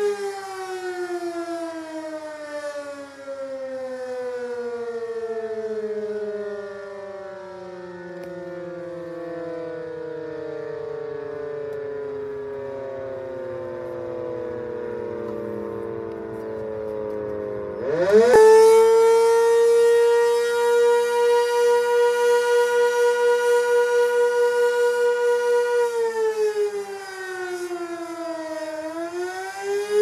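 Sentry 16V1T-B electromechanical outdoor warning siren sounding the attack signal. Its wailing tone slides slowly down in pitch for most of the first two-thirds, then climbs sharply back up about 18 seconds in and holds a steady pitch. Near the end it dips and begins to rise again.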